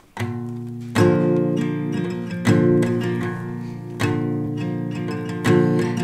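Acoustic guitar strummed in a slow instrumental intro, with a strong strum about every second and a half and lighter strokes between.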